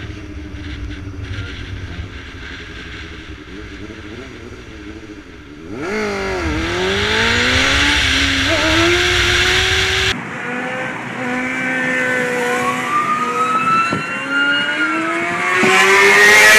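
Motorcycle engine running at speed and revving up and down, with heavy wind noise on the microphone. It is quieter for the first six seconds or so, then louder, and it changes abruptly twice where clips are joined.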